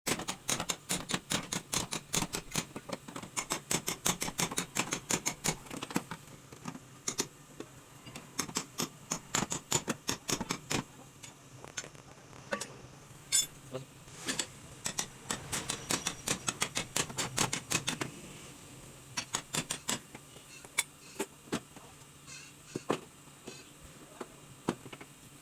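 Light, sharp metal taps in quick runs, then more scattered: a body-repair hammer tapping out the dented sheet metal of a car's rear fender.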